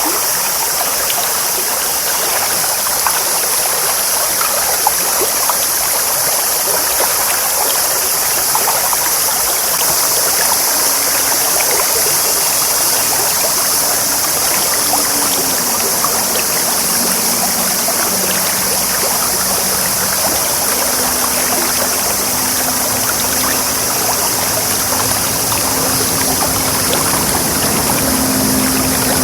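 A clear, shallow stream babbling steadily over stones. From about a third of the way in, a faint low hum, like a distant motor, runs beneath it and drops in pitch once midway.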